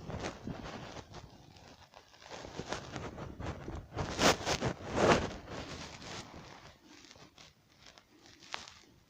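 Irregular rustling and crunching, as of a player's clothing, gear and footsteps while moving, with the loudest scrapes about four and five seconds in.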